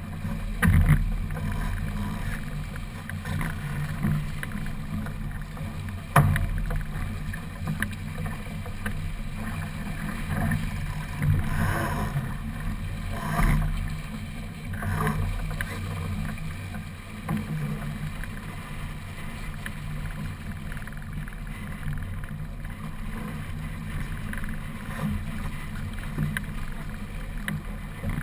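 A sailing keelboat under way in small waves: a steady rush of water along the hull with wind buffeting the microphone. A couple of sharp knocks from the boat or its fittings come about a second in and about six seconds in.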